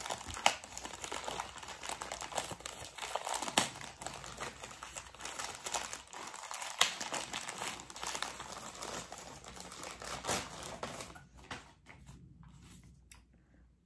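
Green plastic mailer bag crinkling and crackling as it is handled and pulled open by hand. The crinkling dies down about eleven seconds in.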